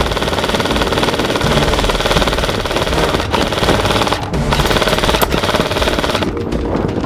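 Airsoft guns firing full-auto in long rapid bursts, with brief breaks about three and four seconds in, stopping about six seconds in. Background music plays underneath.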